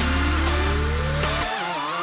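Background electronic dance music building up: a rising sweep climbs steadily in pitch, and the bass drops out about three quarters of the way through.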